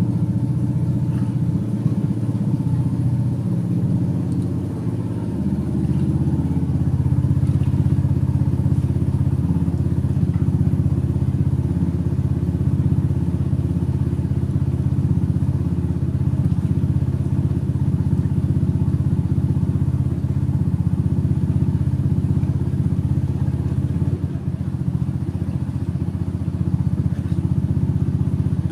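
A small engine starts up suddenly and runs steadily at a constant speed.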